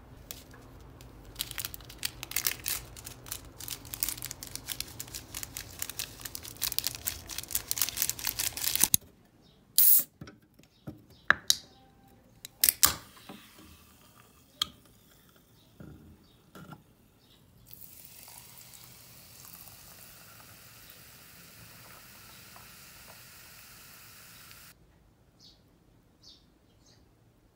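Food sizzling and crackling in a hot steel pan on a portable gas burner for about nine seconds. Then come a few sharp clicks and snaps as an aluminium drink can is opened. Later a steady fizz runs for several seconds and stops suddenly, like carbonated water poured over ice, with a few faint high chirps near the end.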